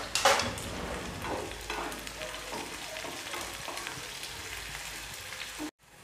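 Chopped onion sizzling in hot oil in a nonstick kadhai, being sautéed toward browning while a spatula stirs and scrapes it around the pan. The loudest scrape comes just after the start, with several lighter strokes after it, and the sound cuts off abruptly near the end.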